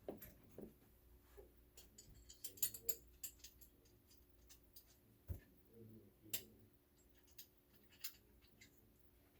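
Faint, irregular small clicks and light taps over a low steady hum.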